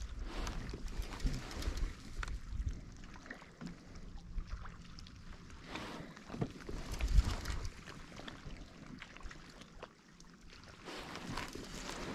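Wind buffeting the microphone on a fishing kayak, with scattered light knocks and handling noises; one sharper knock comes about seven seconds in.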